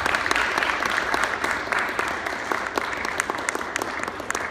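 Audience applauding, dense clapping that slowly thins and fades toward the end.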